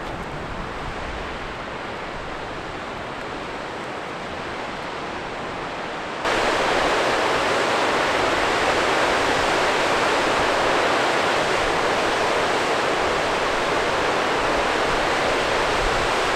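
Snowmelt mountain stream cascading over rock ledges: a steady rush of water that jumps louder about six seconds in.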